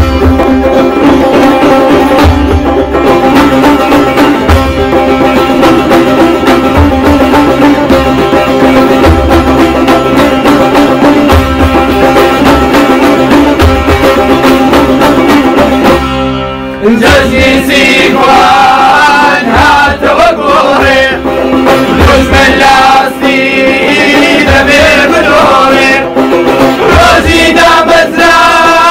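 Kurdish folk music: a long-necked lute and a hand drum playing a steady beat. About 17 seconds in, after a brief drop, men's voices come in singing over the drum and lute.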